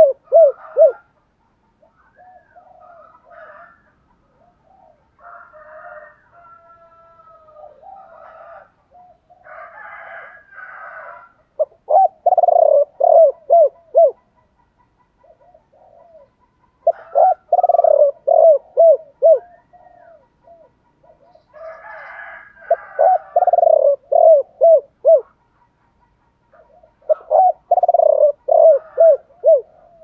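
Spotted dove cooing: loud phrases of several short, quickly falling coos, repeated about every five seconds.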